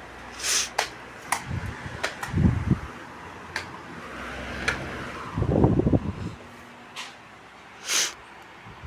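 Britânia electric fans running with a steady whir, overlaid by several sharp clicks and a couple of low thumps from the fans being handled or switched.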